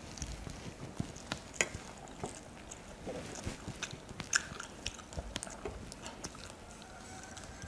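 Someone eating rice and chicken curry by hand: chewing and wet mouth smacks, with fingers working the rice on a plate, heard as irregular small clicks.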